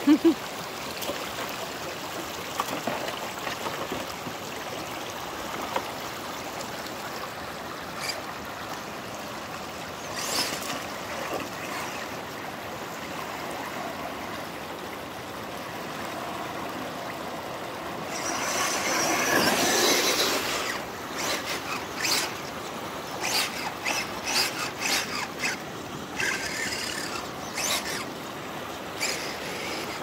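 Shallow rocky creek water running over stones, a steady rushing ripple. About 18 seconds in there is a louder stretch of splashing lasting a couple of seconds, followed by a string of short, sharp sounds near the end.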